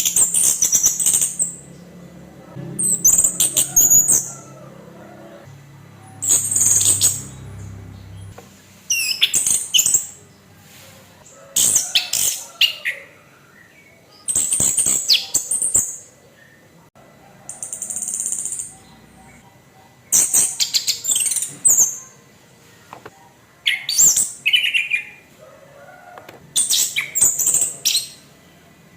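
Orange-headed thrush (anis kembang) singing its harsh 'kasaran' song in short, high-pitched phrases of quick notes. Each phrase lasts about a second, with a short pause between, about ten phrases in all.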